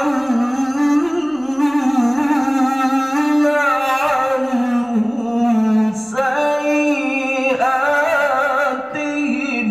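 A man reciting the Qur'an in the melodic tilawah style into a handheld microphone: long, drawn-out notes with winding ornamented turns, held almost without a break, dipping briefly about six seconds in and again near the end.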